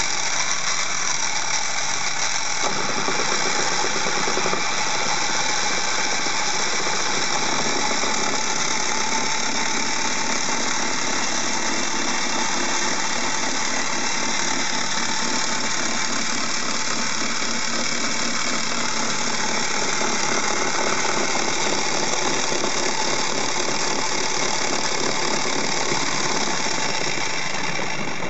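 Beyblade spinning tops whirring and scraping against each other and the plastic stadium bowl: a steady, dense rattling whir.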